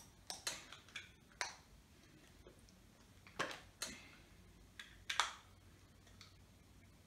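Light clicks, taps and short scrapes of a small makeup bottle and brush being handled, about nine of them, irregularly spaced; the loudest comes a little after five seconds in.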